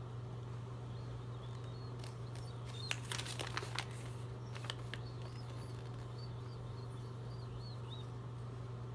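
Steady low hum with a short run of crackling, clicking handling noise about three seconds in and another click near five seconds, like small plastic toy packaging or paper being handled. Faint short high chirps come and go in the second half.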